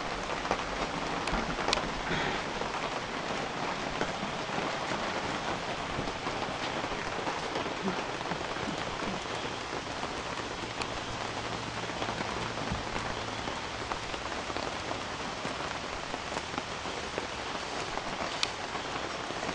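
Steady rain falling on a building site, an even hiss with a few sharper drop ticks.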